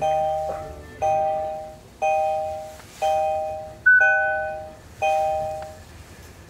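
Kia Optima's instrument-cluster warning chime, a two-note ding repeating once a second six times with each ding fading out, and one higher single beep about four seconds in. The ignition is on and the engine not yet started.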